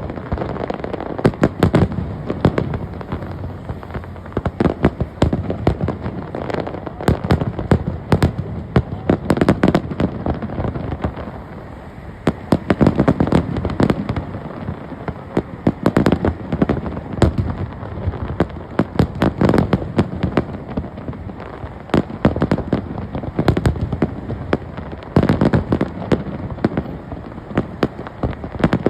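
Fireworks display: a rapid, continuous barrage of overlapping bangs and bursts, several a second, with no let-up.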